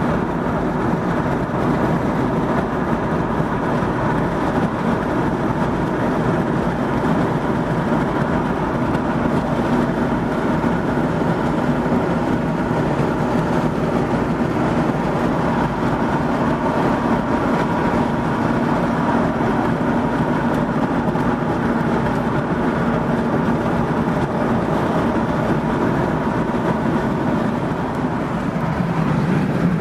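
Steady road and engine noise of a car driving on a highway, an unbroken rumble with a faint hum.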